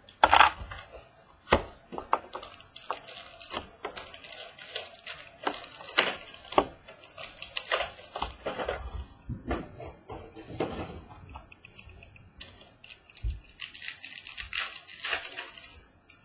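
A trading-card box and its wrapping being torn open and handled: irregular crinkling and rustling of packaging, with scattered sharp clicks and taps.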